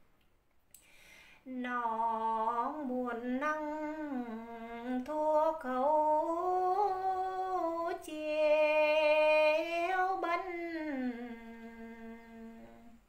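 A woman's unaccompanied voice singing phong slư, a Tày folk chant: one long drawn-out phrase of held notes that waver and slide between pitches. It begins after a breath about a second and a half in and fades away near the end.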